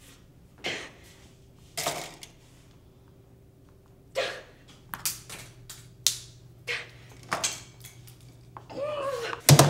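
A woman's wordless, exasperated huffs and breaths come in short separate bursts, with cloth rustling, over a faint steady hum. Her voice starts up near the end.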